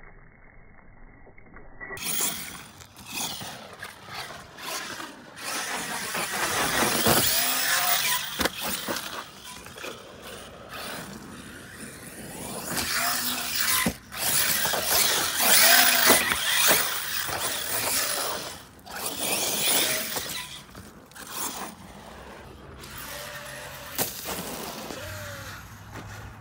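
Arrma Infraction RC car's brushless electric motor whining up and down as it is driven on loose dirt, with the tires spraying and crunching dirt and gravel and a few sharp knocks from the chassis hitting the ground.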